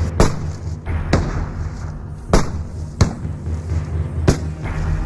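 Sharp musket shots, five in about five seconds at uneven spacing, over a steady low drone.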